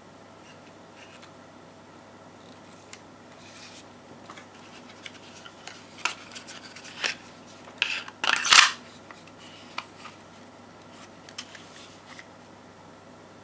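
A Walther P99 blank-firing pistol and a black plastic holster being handled: scattered small plastic clicks and rubs. The loudest is a scrape and snap a little past eight seconds in, as the pistol goes into the holster.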